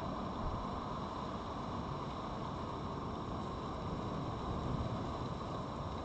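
Steady background noise: a low rumble with hiss and a faint high whine, unchanging and with no distinct events.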